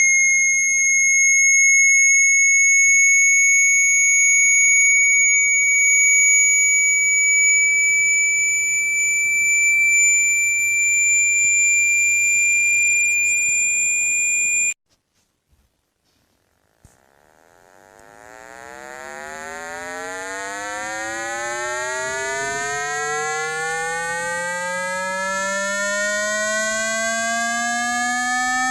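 Electronically generated water-eject tones for clearing water from a phone speaker. A steady high-pitched tone, creeping slightly upward in pitch, cuts off suddenly about halfway through. After a couple of seconds of silence and a click, a low buzzy tone begins, sweeping slowly upward in pitch and growing louder.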